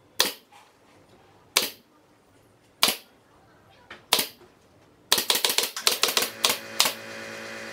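Pneumatic brad nailer firing into MDF panels: four single shots about a second and a half apart, then a quick run of about a dozen shots. A steady motor hum sets in during the quick run.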